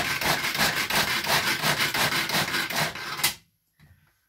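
Parmesan cheese being ground in a hand-operated kitchen chopper, a rapid run of scraping strokes about four to five a second that stops abruptly a little over three seconds in.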